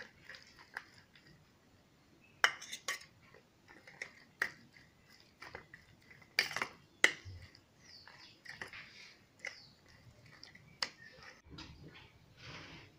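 Metal spoon scraping and clinking against a stainless steel bowl while mixing a moist chili sambol, with sharp clinks scattered irregularly through it.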